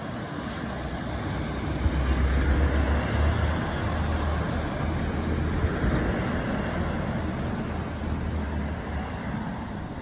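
Low rumble of a passing vehicle, swelling about two seconds in and easing off near the end.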